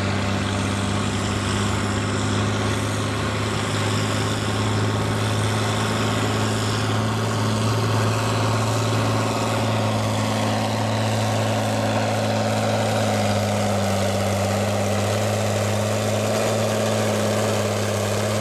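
John Deere farm tractor's diesel engine running under full load as it pulls a weight-transfer sled, a steady drone held at constant speed, with a mid-pitched tone strengthening in the second half as the tractor nears.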